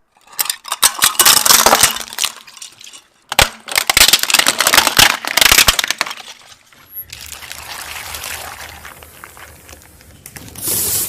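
Brittle objects being crushed under a car's tyre: two long runs of dense crackling and crunching with glassy clinks, then a quieter hiss, and a louder noisy rush near the end.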